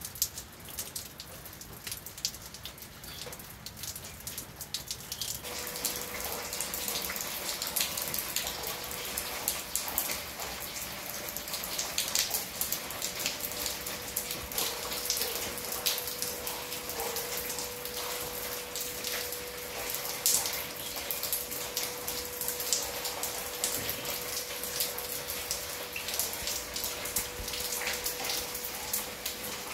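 Rain falling, with many separate drops striking nearby surfaces as sharp clicks. About five seconds in the rain sound grows denser and a faint steady tone joins it.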